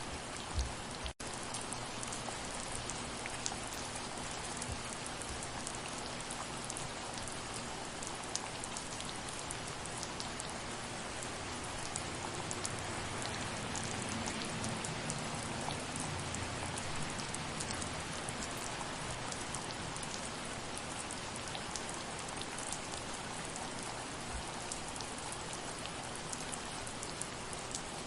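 Steady rain falling, an even hiss dotted with individual drops hitting, with a momentary cutout about a second in.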